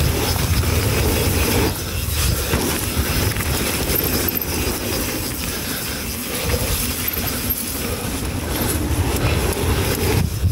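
Mountain bike riding down a muddy trail, heard from an action camera on the rider: a loud, steady rumble of wind on the microphone mixed with tyre and bike rattle.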